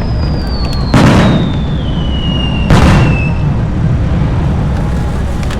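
Fireworks going off: two loud bangs, about a second and nearly three seconds in, over a steady low rumble, with a long whistle falling in pitch through the first half.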